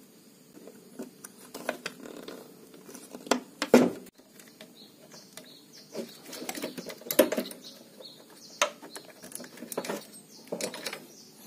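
Irregular small clicks, scrapes and knocks of hands handling a replacement horizontal output transistor: bending its metal leads, then pushing it into place against the heatsink on a CRT TV's circuit board. The loudest knocks come about four and seven seconds in.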